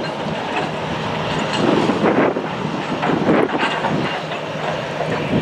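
Airbus A321-200's twin CFM56 jet engines at low taxi power as the airliner rolls slowly past, a steady rumble that swells and fades a little.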